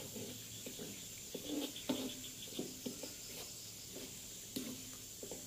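A ladle scraping and knocking in an aluminium wok as spice paste is stirred while it fries, in short, irregular strokes. Crickets chirp faintly in the background.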